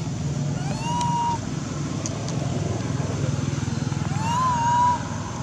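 Baby monkey crying: two long, whistle-like calls, one about a second in and one about four seconds in, each rising then holding steady. A steady low engine-like drone runs under them.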